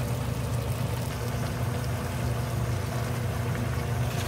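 A steady low machine hum, with chicken and potatoes simmering in spicy sauce in a wok beneath it.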